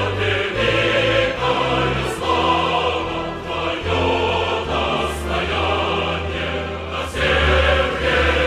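Background music: choral voices over deep, sustained bass notes, with a few brief high swells.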